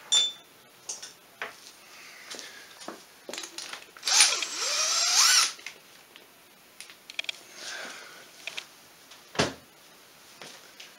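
Cordless power drill run against a cylinder-head nut for about a second and a half, about four seconds in, its pitch wavering and climbing as it spins the nut off. Scattered clicks of tools and parts being handled, and a sharp thump near the end.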